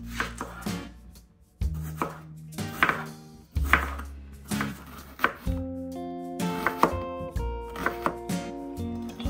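A knife chopping food on a cutting board in irregular strokes, over background music with sustained notes.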